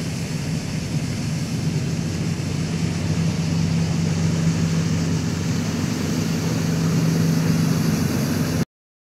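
Airbus A319 airliner climbing away after takeoff: the steady noise of its jet engines with a low drone underneath, cutting off suddenly near the end.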